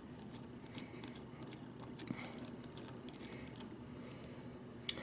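Faint, light metal clicks and ticks of small threaded metal spikes being handled and screwed by hand into a metal attachment plate. They come in a quick irregular run over the first three and a half seconds, with one more just before the end.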